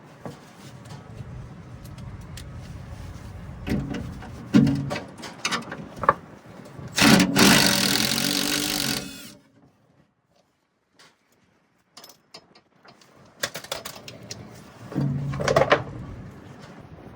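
A handheld power tool's motor running in short bursts, the longest about two seconds near the middle, with a second shorter burst near the end.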